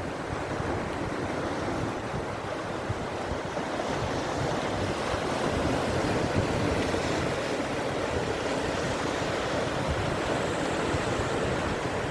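Sea waves washing onto the shore in a steady surf, with wind buffeting the microphone. The surf swells somewhat louder about a third of the way through.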